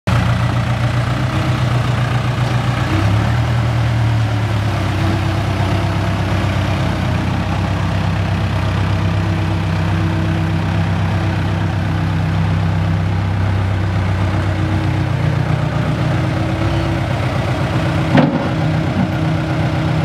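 Case 580K backhoe loader's diesel engine running steadily at low revs while the machine moves slowly on gravel, with one sharp clank near the end.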